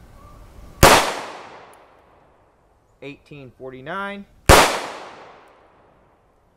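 Two pistol shots from an FN Five-seveN firing 5.7x28mm 44 gr copper hollow-point rounds, about three and a half seconds apart. Each is a sharp crack that rings out and fades over a second or more.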